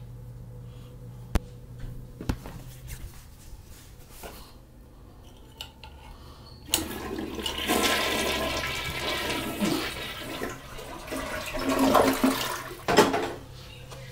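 Toilet flushing: after a few faint clicks, a sudden rush of water starts about seven seconds in and runs for about six seconds, with a sharp knock near the end.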